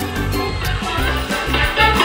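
Music playing from a ride-on toy car's built-in MP3 player. Near the end it changes to a louder, livelier salsa-style song as the next track is selected.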